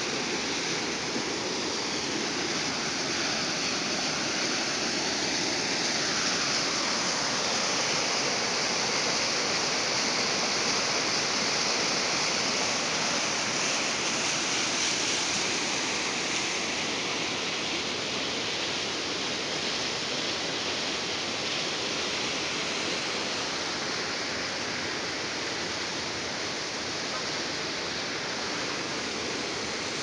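Small waterfall pouring over rock ledges into a pool and running on down a rocky stream: a steady rush of water.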